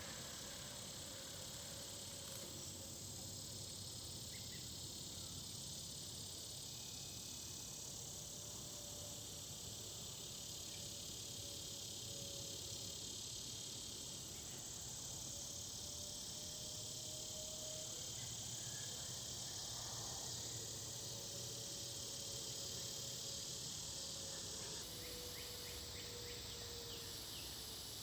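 Steady evening chorus of insects, a dense high-pitched trilling that runs without a break. A faint low drone wavers slowly in pitch underneath.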